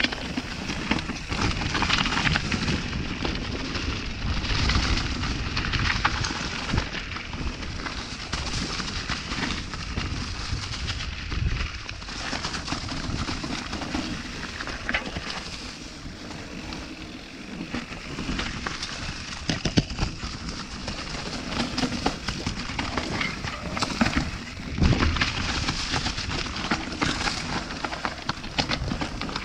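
Mountain bike riding fast down a rocky singletrack: a continuous rush of tyre and trail noise, with many sharp clatters and knocks as the wheels hit stones.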